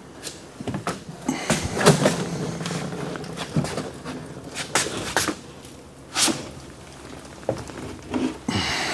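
Wooden cabinet boxes being tipped over and laid face down on cardboard over a concrete floor: scraping and shuffling with several sharp knocks and thuds, the loudest about two, five and six seconds in.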